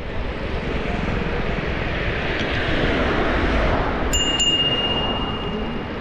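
Wind and road noise while riding a bicycle at about 25 km/h. About four seconds in, a handlebar bicycle bell is struck twice and rings on for nearly two seconds.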